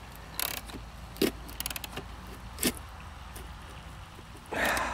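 A few sharp metal clicks, with a louder scrape near the end, as a pedal is turned by hand and threaded into a bicycle-style crank arm.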